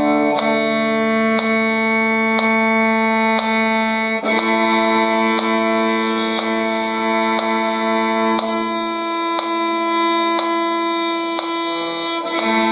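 Bowed string instrument playing double stops, two notes sounding together and held as whole notes that change about every four seconds, with a faint click about once a second.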